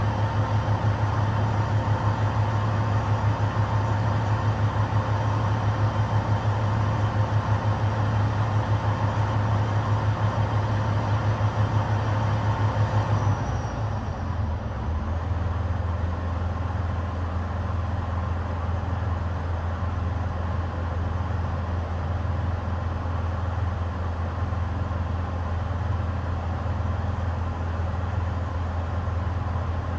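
Heavy truck's diesel engine idling with a steady low hum that pulses slightly. About thirteen seconds in the pitch drops and the engine settles into a lower, smoother idle.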